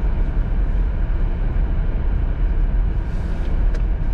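Steady low rumble of engine and tyre noise heard inside the cabin of a Jeep driving in four-wheel drive on snowy roads.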